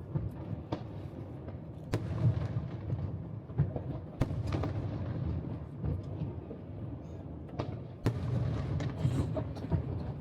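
Aerial firework shells bursting: sharp bangs every second or two over a steady low rumble of booms.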